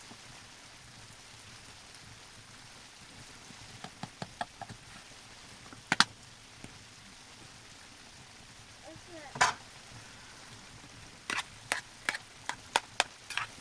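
Scattered sharp clicks and knocks over a faint steady hiss, coming more often near the end.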